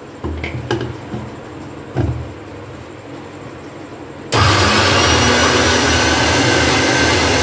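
Electric mixer grinder running in one short burst of about three seconds, grinding soaked chana and urad dal into a thick batter. It starts suddenly about four seconds in and cuts off abruptly. Before it come a few knocks as the steel jar is fitted onto the base.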